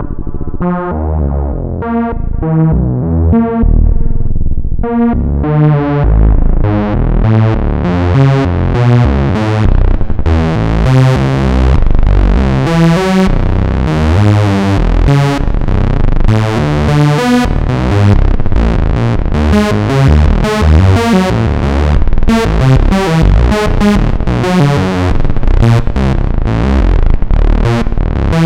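Moog Source monophonic analog synthesizer playing a fast run of short notes with a deep low end. The tone turns much brighter about five seconds in.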